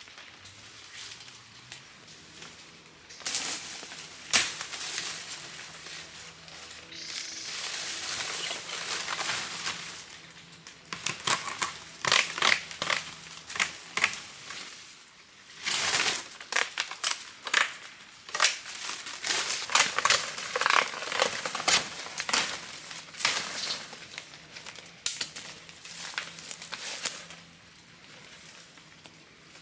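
Irregular crinkling and crackling, made up of many sharp clicks in uneven clusters, louder through the middle stretch and dying down near the end.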